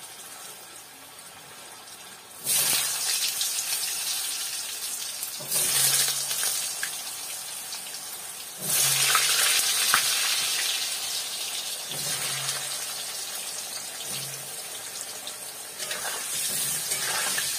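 Cubed potatoes dropped into hot oil in a kadai, a few handfuls at a time: each drop sets off a sudden loud sizzle that settles into a steady frying hiss. Near the end a spatula stirs them in the pan.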